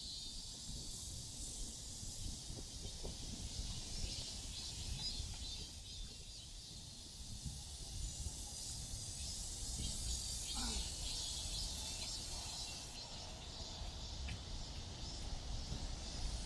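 Outdoor summer ambience: a steady high chirring of insects over a low rumble of wind and distant city noise.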